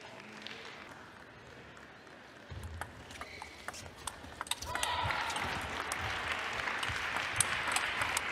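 Table tennis ball clicking off bats and table during a doubles rally. About halfway in, crowd cheering and applause swells up and carries on under the clicks of the rally.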